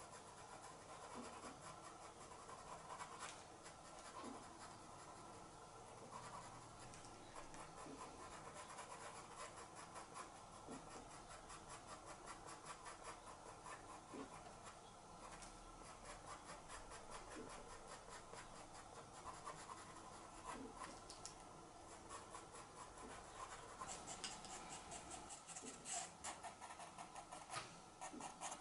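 Faint scratching of a pastel pencil drawing short strokes on pastel card, the strokes coming thicker and louder near the end.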